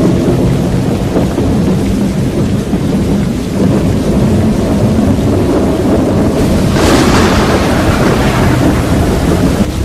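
Loud, steady rumble of stormy wind, with a harsher hiss joining about seven seconds in.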